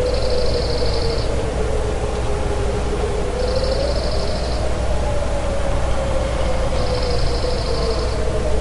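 Distant wailing sirens, two slowly wavering tones that rise and fall together over several seconds, over a steady low hum. A short, high, rapid chirping burst recurs about every three and a half seconds.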